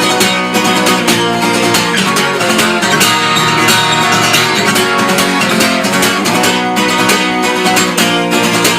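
Guitar strummed in the galop pattern (down, up, down strokes), mixing accented ringing strokes with muted, damped strokes, played steadily and fast.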